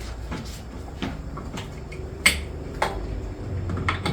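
Hard kitchenware being handled: a handful of knocks and clinks, the sharpest about two and a quarter seconds in and two smaller ones later, over a low hum.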